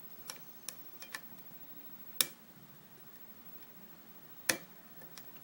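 Clicks from a disc detainer pick turning the discs of a U-Haul disc lock: a few faint ticks in the first second, then two sharp, louder clicks about two seconds apart. The picker afterwards thinks he has overset a disc.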